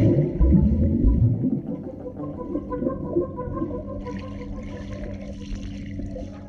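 Muffled water sounds in a swimming pool: heavy sloshing and splashing for the first second and a half, then calmer, with a steady hum underneath.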